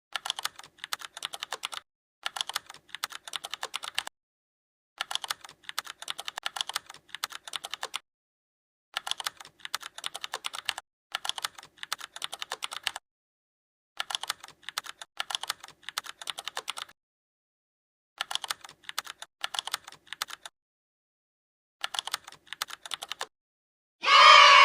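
Computer keyboard typing sound effect: rapid key clicks in short runs of about two seconds each, eight in all, separated by dead silence. Near the end a much louder pitched sound effect of about a second cuts in.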